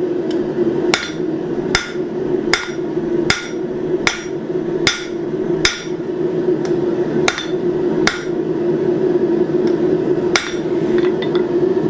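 Blacksmith's hammer striking hot steel on an anvil to isolate the body of a forged leaf: evenly spaced blows about one every 0.8 seconds, stopping shortly before the end, over a steady hum.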